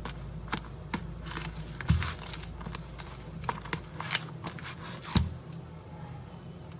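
Slime being worked by hand, with irregular sticky clicks and crackles over a steady low hum, and two louder thumps, about two seconds in and about five seconds in.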